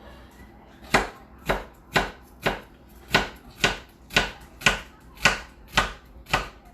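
Kitchen knife chopping an onion on a cutting board in steady, even strokes, about two a second, starting about a second in.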